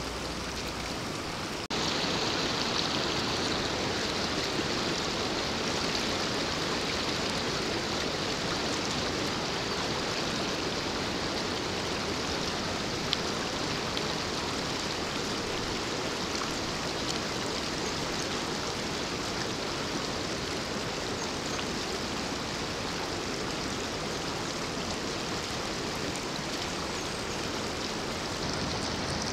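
Steady rush of flowing water in a spring-fed trout stream, a little louder from about two seconds in.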